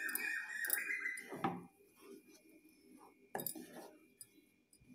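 Wooden spatula stirring a thick beetroot-and-curd mixture in a nonstick pan: soft wet scraping with a few sharp knocks of the spatula against the pan.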